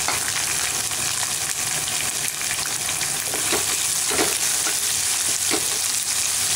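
Chopped onions frying in hot oil in a pan, a steady sizzle, with a few short scrapes of a spatula stirring them around the middle.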